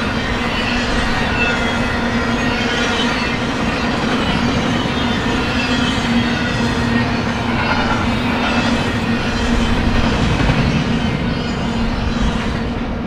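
BNSF intermodal freight train's cars rolling past, a steady loud rumble with a faint high-pitched wheel squeal over it. The sound turns duller shortly before the end.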